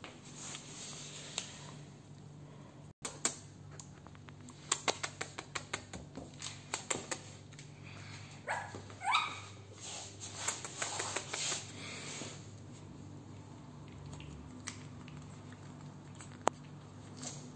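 A tiny puppy's claws ticking irregularly on a tiled floor as it trots about, the ticks coming in clusters. A brief high squeak sliding up and down is heard about nine seconds in.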